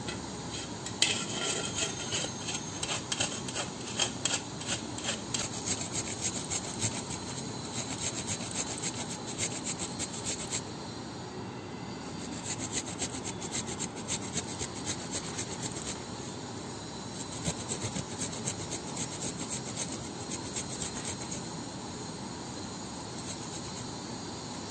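Peeled fresh ginger being grated by hand on a grater: a run of quick rasping strokes, about two to three a second, that stops briefly a couple of times and then carries on.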